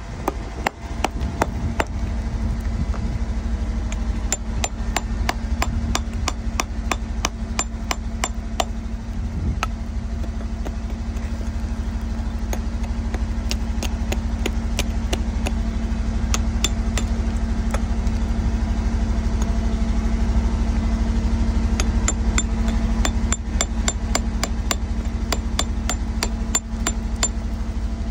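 A chisel chipping hard rock around an embedded agate nodule: sharp metallic taps coming in quick runs, densest during the first nine seconds and again near the end, sparser in between. A steady low hum runs underneath.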